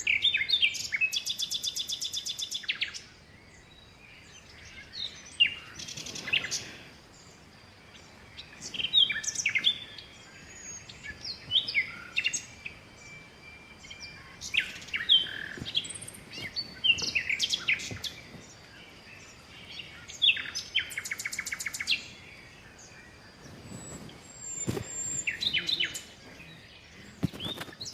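Birds singing, with repeated short chirps and whistled notes. Fast trills come at the start, about twenty seconds in, and near the end.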